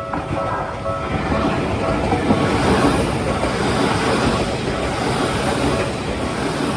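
Tokyu Oimachi Line electric train passing over the level crossing: a steady rush of wheels on rails that swells to its loudest about two to three seconds in. The crossing's warning bell rings under it at the start, then is drowned out.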